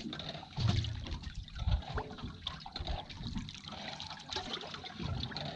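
Water lapping and sloshing against a boat's hull, with a few dull low knocks about one and two seconds in.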